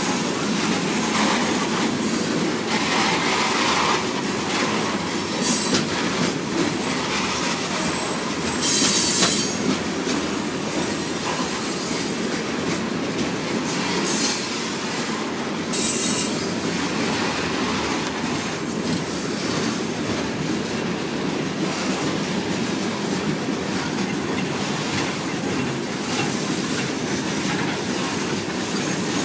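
Freight train cars rolling past steadily, with wheel clatter over rail joints and brief high-pitched wheel squeals and clanks now and then.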